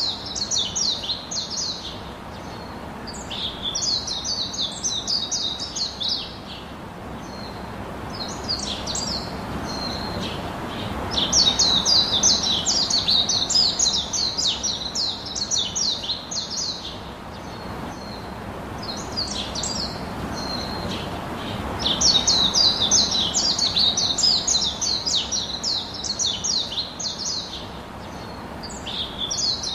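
Small bird chirping in quick runs of high, rapidly repeated notes, each run a few seconds long with short pauses between, over a faint steady background hiss.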